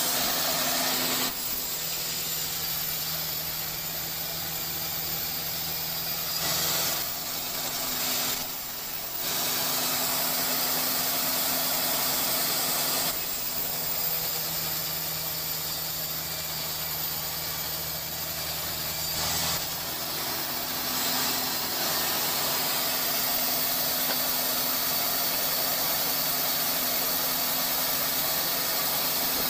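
Sawmill machinery running steadily with a low hum and a hiss; the sound changes abruptly several times.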